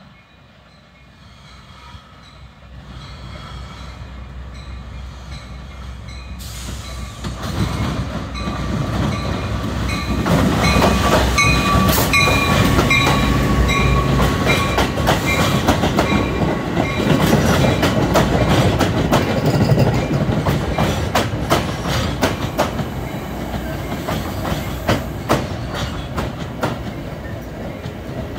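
Metra commuter train approaching and passing close by. Its rumble builds over the first ten seconds to a loud peak, then the bilevel cars roll past with a long run of rapid wheel clicks over the rail joints.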